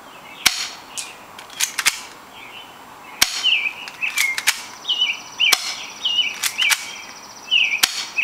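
Airstrike 240 airsoft pistol firing BBs: a series of sharp snaps, some single and some in quick clusters, about one a second. A bird chirps repeatedly behind the shots.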